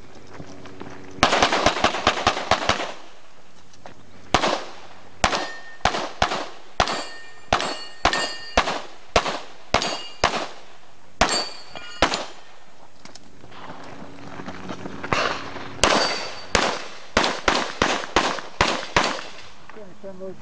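Semi-automatic pistol shots fired in fast strings: a quick burst of about eight shots, then shots about two a second, several followed by a thin metallic ringing as steel targets are hit, and another quick string near the end.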